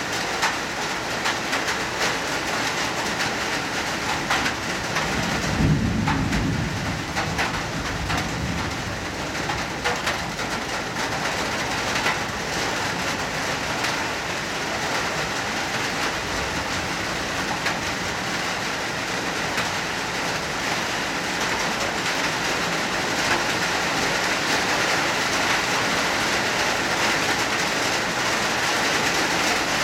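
Hard rain falling steadily: a dense hiss with many small drop impacts. A brief low rumble comes about six seconds in.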